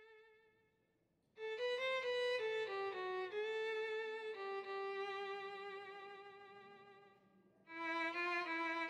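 Background music: a solo violin playing a slow melody in two phrases. The first starts about a second and a half in and ends on a long held note that fades away; the second starts near the end.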